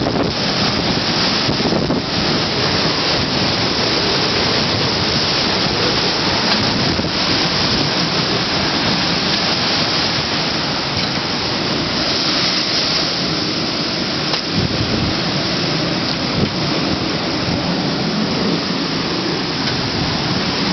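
Typhoon-force wind and driving rain: a loud, steady roar of wind and rain, with wind buffeting the microphone.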